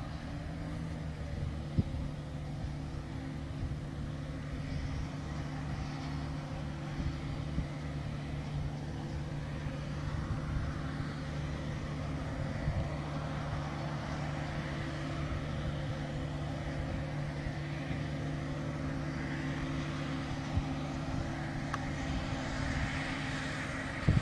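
John Deere tractor's diesel engine running at a steady pitch as it pulls a loaded LEON vertical manure spreader, with a few brief knocks.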